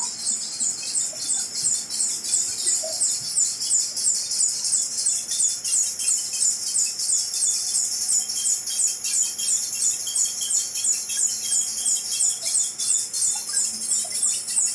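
Flexographic printing press running, with a rapid, regular high-pitched squeak, about four or five a second, over a faint low hum.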